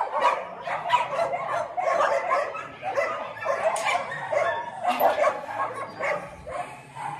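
Several dogs barking and yipping at once, a dense run of short overlapping barks.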